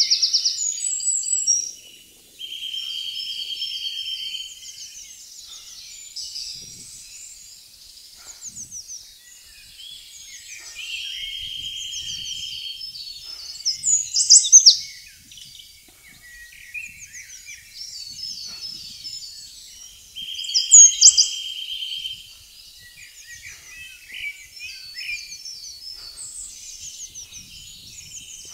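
Woodland birds singing, several songs overlapping. One bird repeats a steady, even trill of about two seconds three times. Loud high phrases stand out near the start, about halfway and about three-quarters through.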